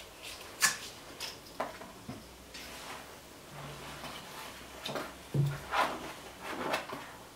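Scattered short, quiet mouth noises from children sucking on drinking straws stuck into apples and chewing apple, with a few brief low hums.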